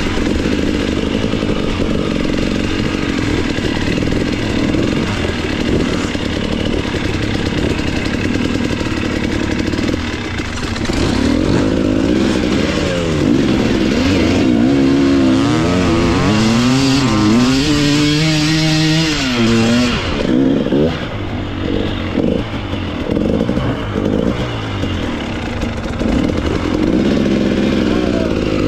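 Enduro motorcycle engine running hard, steady at first, then its revs rising and falling again and again for about ten seconds as the throttle is worked, before dropping away and running unevenly.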